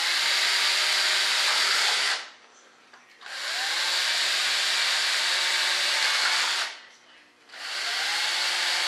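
Cordless drill running in three long bursts, each spinning up with a rising whine, backing screws out of the wooden frame around a fibreglass mold.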